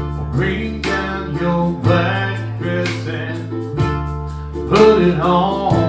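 Plucked and strummed acoustic string instruments playing an instrumental introduction, with a low bass note that changes about every two seconds.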